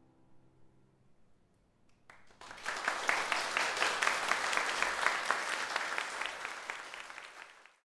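The last held notes of the song die away in the first second, then a small audience applauds, starting about two seconds in and fading out just before the end.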